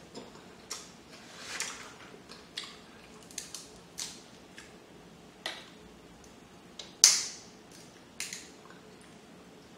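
Crab leg shells being cracked and picked apart by hand: irregular sharp cracks and snaps, the loudest about seven seconds in.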